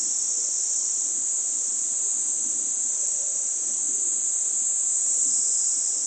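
Continuous shrill insect chorus, a single steady high-pitched drone that does not let up.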